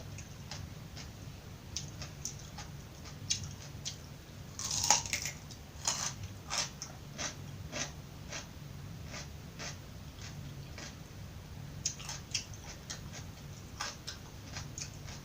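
Crisp raw vegetables bitten and chewed close to the microphone: a loud crunching bite about five seconds in, then sharp crunches as they are chewed.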